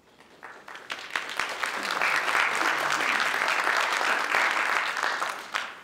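Audience applauding in a hall, building over the first two seconds and dying away near the end.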